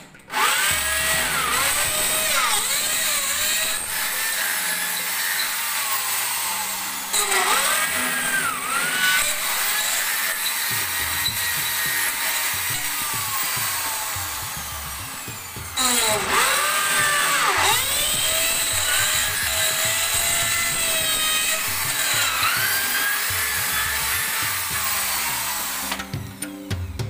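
Handheld electric drill boring into a wall, running in long stretches with its motor pitch dipping and rising as it works; it starts again about halfway through and stops shortly before the end.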